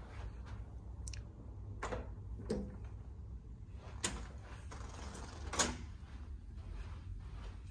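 Hotel closet doors being handled and closed: about five sharp clicks and knocks spread over several seconds, the loudest near the end, over a low steady hum.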